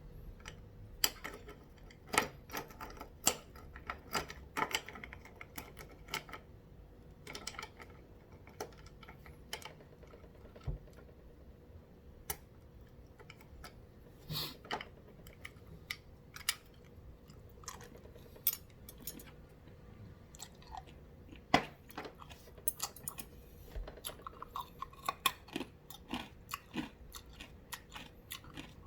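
A person chewing and crunching ice, with irregular sharp crunches and clicks.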